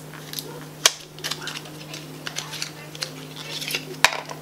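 A small mascara box being opened and handled: two sharp clicks, about a second in and near the end, with light crinkling and tapping of the packaging between them.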